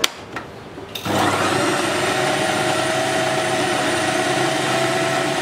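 A few light clicks, then about a second in an electric food processor starts and runs steadily at constant speed, chopping a thick mince of chicken, bread and spices.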